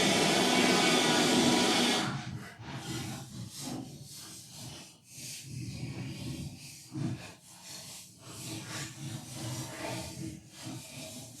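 Vacuum cleaner running, switched off abruptly about two seconds in; after that only quiet, irregular scrapes and small knocks of parts being brushed and handled.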